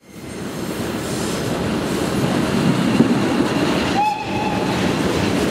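Locomotive-hauled train running past close by, a steady rumble of wheels on rail that fades in over the first second. About four seconds in, a short high tone sounds briefly.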